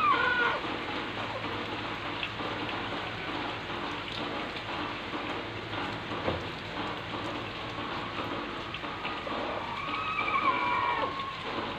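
Steady hiss of rain, with a vehicle passing near the start and another around ten seconds in, each a whine that falls in pitch as it goes by.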